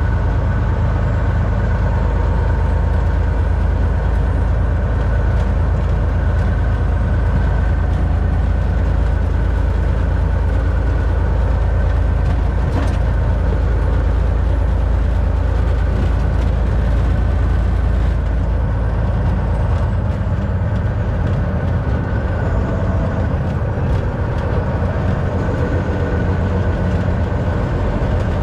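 Cab interior of a 2022 Volvo 760 semi-truck under way: a steady low rumble of the diesel engine and road noise, easing slightly in its deepest part about two-thirds of the way through.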